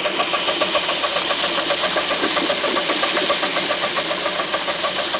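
2.5-inch-scale live-steam narrow-gauge locomotive running, its stack giving a rapid, even chuffing over a steady hiss of steam.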